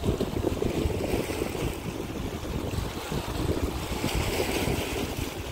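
Wind buffeting the phone's microphone over the wash of small waves on the sea.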